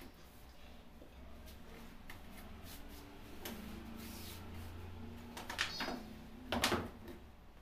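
Hands smoothing and spreading shirt fabric flat on a cutting table, a soft rustle of cloth, with two short, louder knocks about five and a half and six and a half seconds in.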